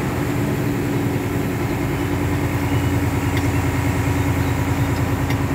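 Fire truck's engine running as the truck drives, heard from the cab: a steady low rumble with a fast, even pulsing.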